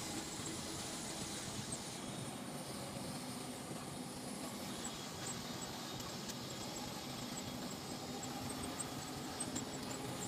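Steady engine and road noise inside a moving vehicle's cab as it drives along a concrete road.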